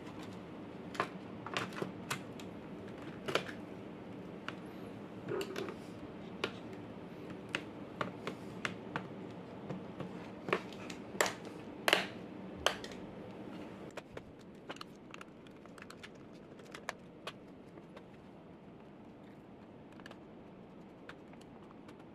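Irregular key taps and clicks on a laptop keyboard, some in quick clusters, over a steady low hum. The clicks grow sparse in the last several seconds.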